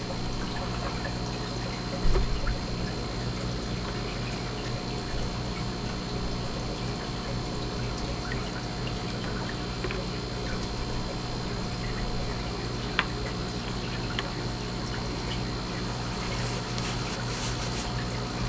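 Water sloshing and trickling as small coral frags are rinsed in a container of seawater, over a steady hum. There is a knock about two seconds in and a sharp click later on.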